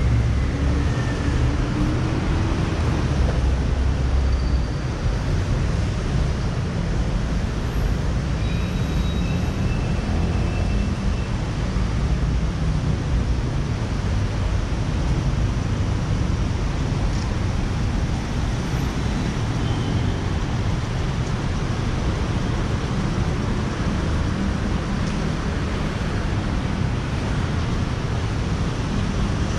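Steady road traffic on a busy city street: a continuous wash of passing vehicles with a heavy low rumble, a little louder in the first few seconds.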